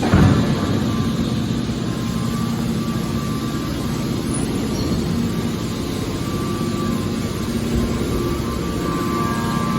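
Hydraulic scrap-aluminum baler running with a steady machine hum, with a short heavy thud right at the start.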